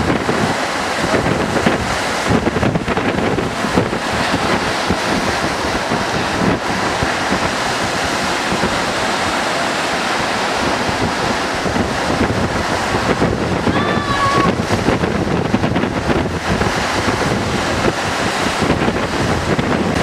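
Breaking surf, a steady rushing wash of waves, with wind buffeting the microphone.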